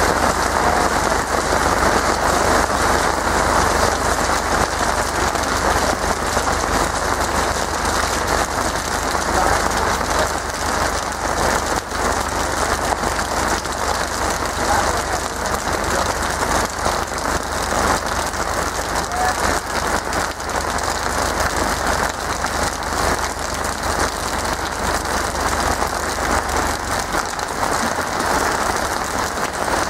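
Steady tropical rain falling and splashing on surfaces, an even hiss that keeps up throughout.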